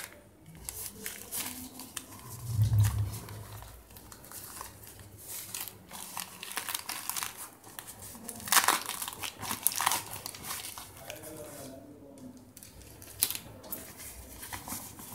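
Irregular crinkling and rustling as hands open and handle a soft black drawstring pouch and its contents, with louder crackles about two-thirds of the way through. A brief soft low thump about three seconds in.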